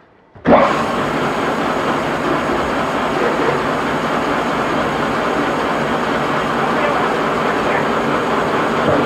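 Homemade band saw fitted with a sawmill band blade starting up about half a second in, then running steadily with no load.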